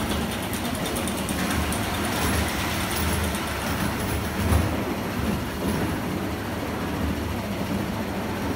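Crazy Mouse roller coaster car rolling along its steel track, a steady rumble with a brief louder swell about four and a half seconds in.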